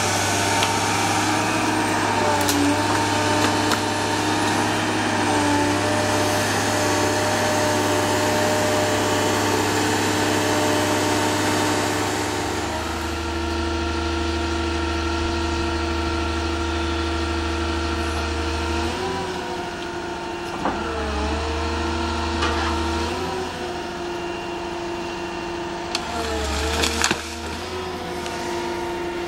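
The carrier machine's diesel engine runs steadily, driving the hydraulics of a tree-felling shear gripper and saw unit. Its note shifts about halfway through and sags several times, as under hydraulic load. There are a couple of sharp cracks near the end.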